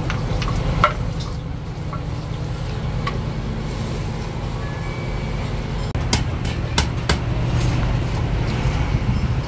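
Steady low motor rumble, with a few light knocks of a stone pestle crushing sambal in a stone mortar. About six seconds in come several sharp metallic clicks of tongs against a flat-top griddle.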